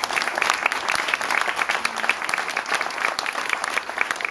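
A small group of people clapping their hands in applause, many separate claps close together.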